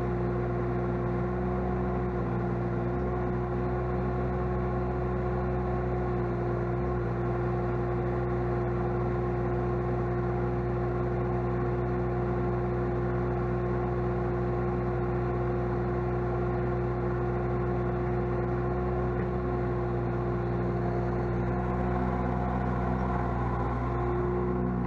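Sunward SWE18U mini excavator's diesel engine running steadily at a constant speed after its 1000-hour service, with an even hum and no change in pitch.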